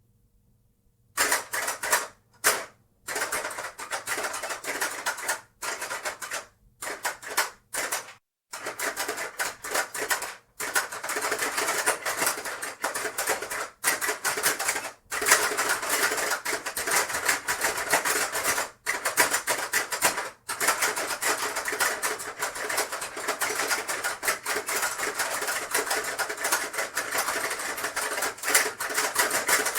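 Hungry Hungry Hippos board game in play: plastic hippo heads snapping down again and again as their levers are pressed, with marbles rattling, a rapid clatter of clicks. It starts about a second in, comes in short spells with brief pauses, then runs almost without break from about ten seconds in.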